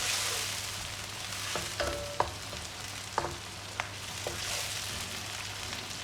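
Chopped onion sizzling as it fries in oil in a pan, on its way to light brown, while it is stirred: a utensil clinks and rings briefly against the pan several times, mostly in the middle of the stretch.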